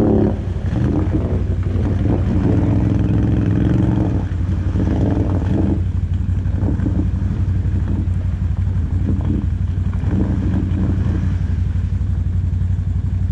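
ATV engines running and revving up in irregular surges as the machines push through ice and water.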